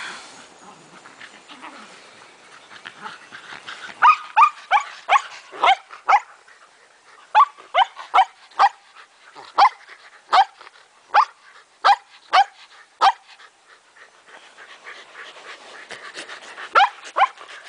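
Shetland sheepdog barking in short, sharp, high barks, about two a second. The barks start about four seconds in and run for some nine seconds, stop, then start again near the end.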